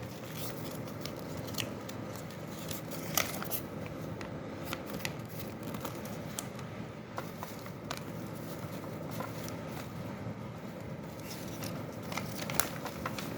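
Packaging being handled while accessories are unpacked from a box: rustling and crinkling with scattered sharp clicks and taps of plastic parts.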